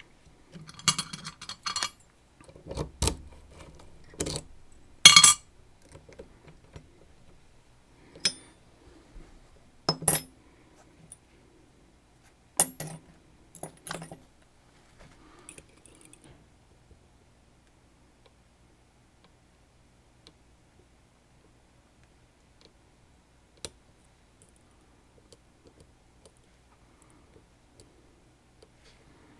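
Metal clinks and jangles of small metal parts, a Sargent Keso lock and its tools being handled, in a string of separate strikes over the first dozen seconds, then one lone click later on.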